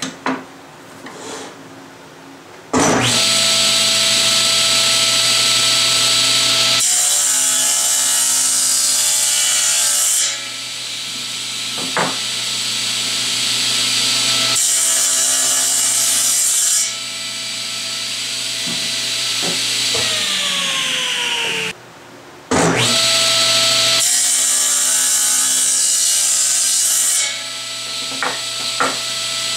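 General 350 table saw running and crosscutting a thick pecan blank. The motor's whine cuts in sharply about three seconds in. Louder hissing stretches, with the blade in the wood, alternate with quieter ones as it spins free, and there is a short break just past the two-thirds mark.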